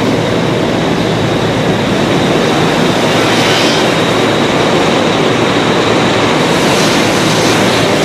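Fire engine running steadily, a loud, even rumble with a faint high whine through it.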